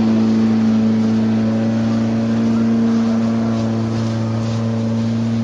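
A steady motor drone that holds one pitch without revving.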